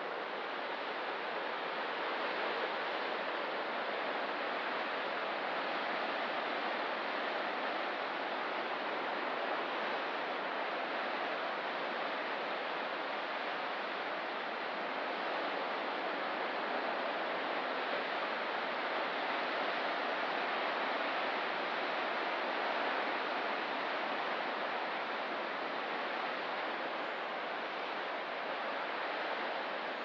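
Ocean surf on a rocky coast: a steady, even hiss of breaking and washing waves with only slight rises and falls in level.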